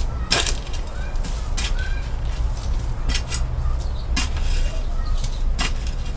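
Digging in dry ground: a hand tool striking and scraping into the soil about half a dozen times at uneven intervals, over a steady low rumble.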